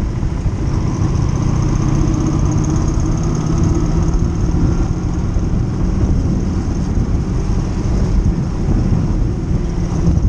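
Motorcycle running at a steady pace while being ridden, its engine note mixed with heavy low rumble from wind on the microphone.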